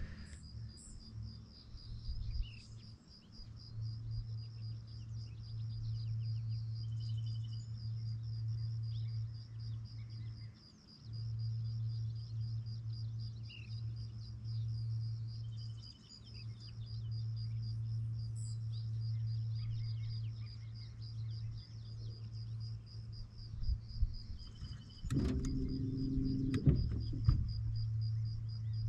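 Electric trolling motor on a small aluminium boat, a steady low hum with a faint high whine, cutting out briefly a few times as it is switched off and on. A few knocks on the boat come near the end.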